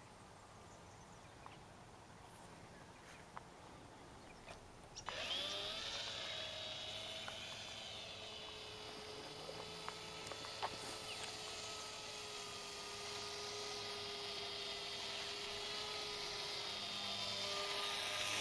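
Small electric motor and propeller of a foam RC slow flyer (a converted toy Cessna 182) starting up suddenly about five seconds in, then a steady whine as the plane flies, growing louder near the end as it comes closer. Before the motor starts there are only a few faint clicks.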